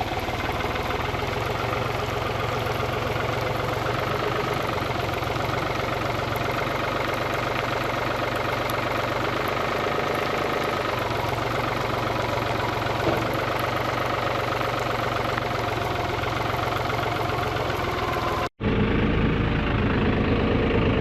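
Diesel tractor engine running steadily. About three-quarters of the way through, the sound cuts off abruptly and goes straight into a louder engine with a steady hum.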